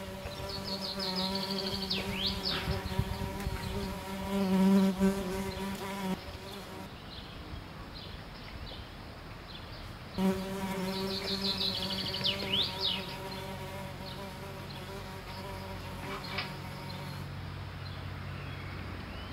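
Steady buzzing drone, a low hum with a stack of overtones, overlaid near the start with a rapid high chirping trill and quick sweeping whistles. The same buzzing-and-chirping passage repeats about ten seconds later, as if looped.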